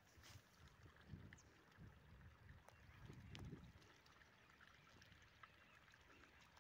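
Near silence, with faint low rumbles of wind buffeting the microphone coming and going.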